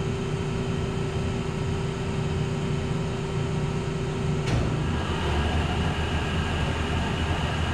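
Hardinge HC chucker lathe running steadily with one held tone. About four and a half seconds in there is a sharp click, and the sound changes to a higher, steady cutting sound as a #3 center drill forms the hollow point in a solid brass .357 bullet.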